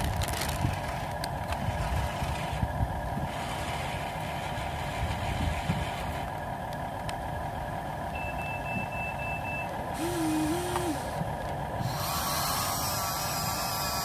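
Remote-control toy construction vehicles running, with a steady electric whir. About eight seconds in, a toy's sound module gives five quick, high electronic reversing beeps, followed by a short two-note electronic tone; from about twelve seconds in the sound turns fuller and noisier as the Huina 1593 RC excavator's arm moves.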